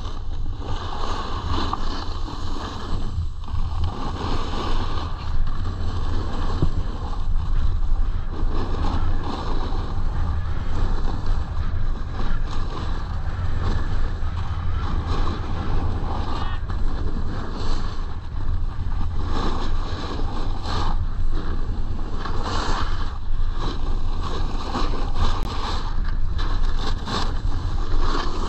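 Wind rushing over an action camera's microphone and a snowboard's edges scraping across packed snow. The scraping swells and fades every second or two as the board turns.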